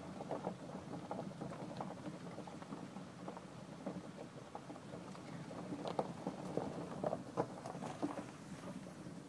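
A small vehicle rolling slowly over bumpy ground, a low steady rumble with irregular rattles and knocks.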